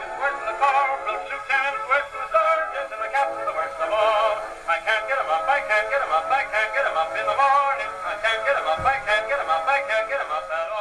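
A male singer on a 78-rpm record played through a wind-up portable phonograph, thin and narrow-sounding, with surface crackle and hiss.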